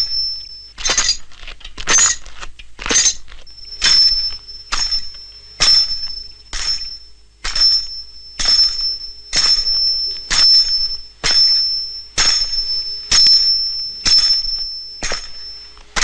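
Spurs jingling with each slow, measured footstep: a sharp metallic clink with a short high ring, about once a second.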